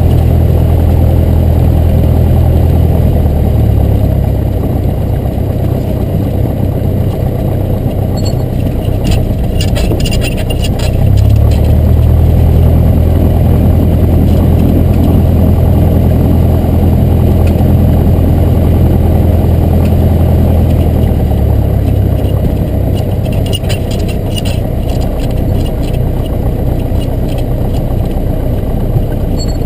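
Cessna 172's piston engine and propeller running steadily and loud. The engine note eases about 3 s in, rises again about 11 s in and eases once more about 21 s in, as the power is changed.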